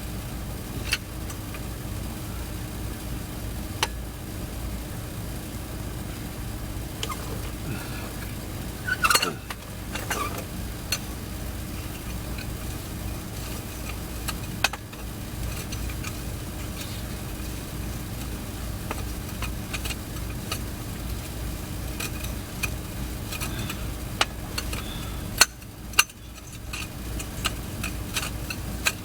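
Steady background hum with scattered sharp clicks and knocks of hands-on work on a vehicle, a short scraping sound about nine seconds in and two sharper knocks near the end.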